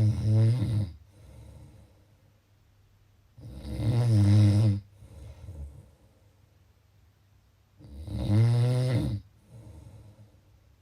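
A person snoring: three loud snores about four seconds apart, each followed by a shorter, softer breath sound.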